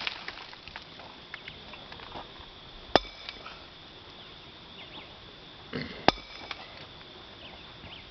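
Heavy hammer striking a large stone to split it, two sharp blows about three seconds apart, each with a short metallic ring.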